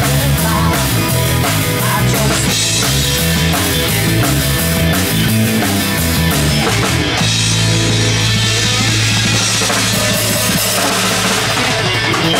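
Live rock band playing without vocals: electric guitar, bass guitar and drum kit. About seven seconds in, the band settles onto a long held low note while the drums keep hitting.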